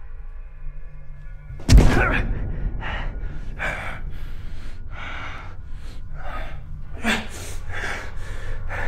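Faint sustained music tones, then a sudden loud impact hit about a second and a half in. After it, a man breathes heavily and pants, one hard breath about every second or less, over a low rumbling drone.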